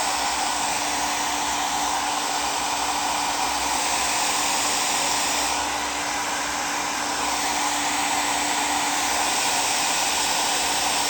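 Handheld hair dryer blowing steadily: an even rush of air with a faint steady hum from its motor, heating a stuck plastic knob to loosen it on its potentiometer shaft.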